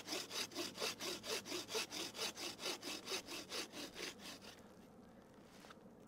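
Improvised bushcraft bow saw cutting through a wooden post with fast, even rasping strokes, about four a second. The sawing stops a little after four seconds in as the cut goes through.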